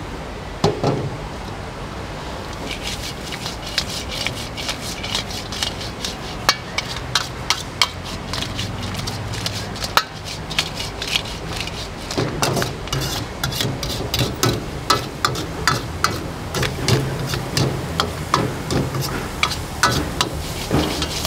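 A metal ladle scraping and clanking against a steel wok as mantis shrimp are stir-fried, over a steady hiss. The clanks are sparse at first, then come quickly, several a second, from about three seconds in.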